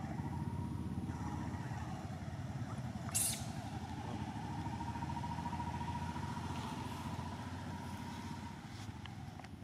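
A motor vehicle's engine running steadily with a low rumble and a faint steady whine, with one short sharp hiss about three seconds in.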